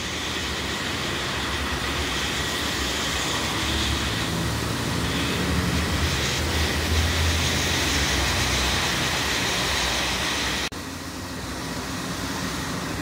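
Street traffic noise, with the low rumble of a heavy vehicle swelling and fading in the middle. The level drops suddenly near the end.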